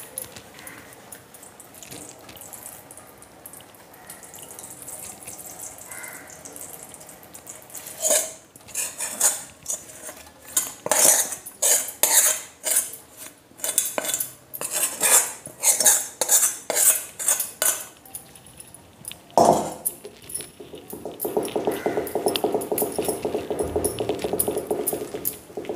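Steel kitchen utensils clinking and scraping as herb-steeped oil and its residue are emptied from a steel bowl into a cloth-lined steel strainer: a run of sharp metallic scrapes and knocks, then one loud clank. A steady rasping sound follows for the last few seconds.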